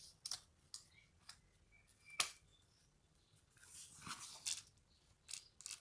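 Hands handling paper card pieces: soft rustling and a few light clicks and taps, the sharpest about two seconds in, as a layered die-cut paper flower is pressed onto the card.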